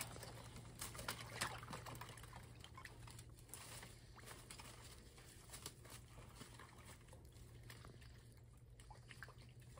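Faint splashing and trickling of water as hands and waders work in a shallow, partly iced-over creek, with a few sharp clicks in the first second and a half.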